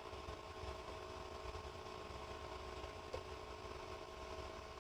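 Steady low machine hum with a few faint constant whining tones, and one light click about three seconds in.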